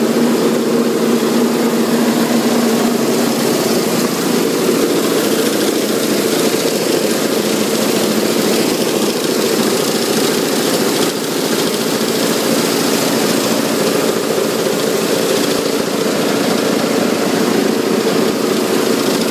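2003 Cedarapids MVP 280 cone crushing plant running: a loud, steady mechanical drone of its machinery with a constant low hum, unchanging throughout.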